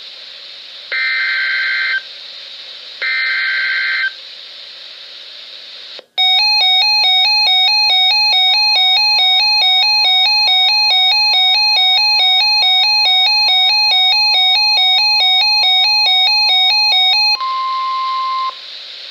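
NOAA Weather Radio Emergency Alert System signal: two harsh digital header data bursts of about a second each, then a loud, rapidly pulsing two-tone attention alarm lasting about eleven seconds. A steady single-pitch weather-radio warning tone joins partway through and sounds alone for about a second after the pulsing stops. The alert marks the start of a severe thunderstorm warning.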